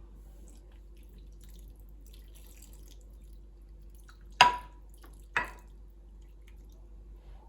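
Two sharp clinks about a second apart, each with a short ring, from kitchenware knocking together, over a faint steady hum.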